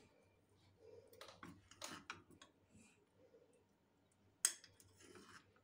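Faint, scattered clicks and light taps as cooked instant noodles are lifted out of a pot into a glass bowl with a utensil, with one sharper click about four and a half seconds in.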